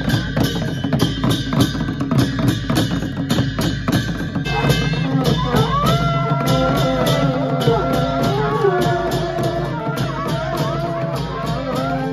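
Traditional Himachali dhol drums beaten with sticks in a fast, steady rhythm, about four strokes a second. A wind instrument joins with a wavering melody about four and a half seconds in.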